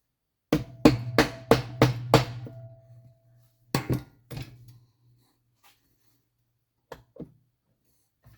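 Hammer blows during an engine rebuild: a quick run of six strikes with a low ring carrying on after them, then two more strikes a second later and two lighter knocks near the end.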